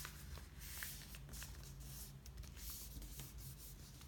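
Soft rustling swishes of hands pressing and sliding over a sheet of paper, smoothing down and creasing the folds of a paper airplane, with a few small crinkles.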